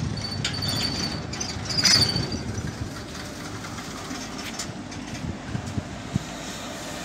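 Freight train of covered sliding-wall wagons rolling past, its wheels rumbling and clicking over the track. A high thin wheel squeal comes briefly about half a second in and again, loudest, near two seconds. After that the rumble eases as the last wagon goes by.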